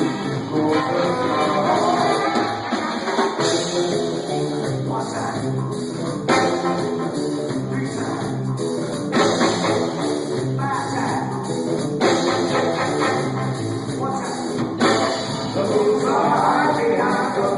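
Live rock band playing: electric guitar, drum kit and singing, with a loud full-kit hit about every three seconds.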